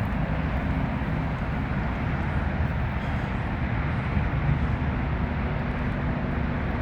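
Steady low rumble and hiss of movement and wind noise on a handheld phone's microphone while travelling along the trail, with no distinct knocks or clanks standing out.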